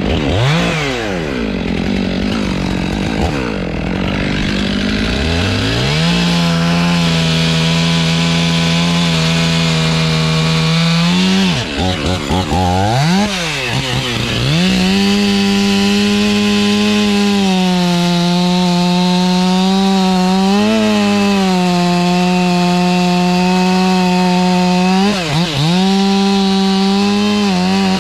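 Stihl chainsaw blipped up and down a few times, then held at full throttle cutting into a big poplar trunk. Its pitch stays steady for long stretches, with a drop and recovery in revs about halfway through and a short dip near the end.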